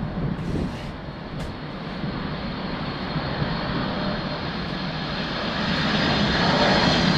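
Jet engines of a Boeing 747-400 freighter running with a steady rush. It grows louder over the last couple of seconds as a high whine comes in.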